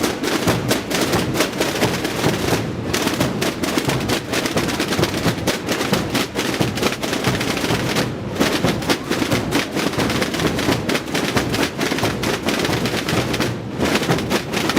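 Massed Holy Week drums (tambores) played by a large group of drummers, a dense rapid continuous beating with a short break about every five and a half seconds as the drum pattern repeats.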